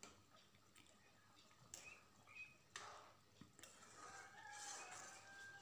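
Faint sounds of a metal spoon stirring thick curry in a kadhai, with soft sloshing scrapes now and then. A few faint high calls are heard in the background, thin held tones near the end.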